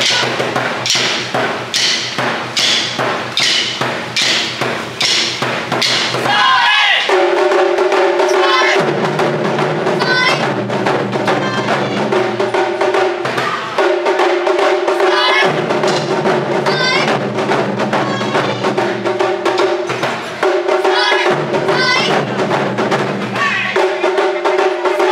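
Taiko ensemble of large barrel drums on stands beaten together in a steady rhythm, about two strikes a second at first. From about seven seconds in a held melodic line of long notes plays over the drumming.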